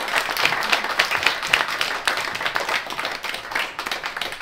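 Audience applauding, many hands clapping at once, slowly dying down near the end.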